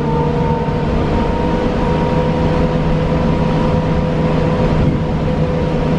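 Battery-electric New Flyer XE40 city bus running at a steady speed, heard from inside. Its Siemens ELFA2 traction motor gives a steady whine of several tones over road and tyre rumble.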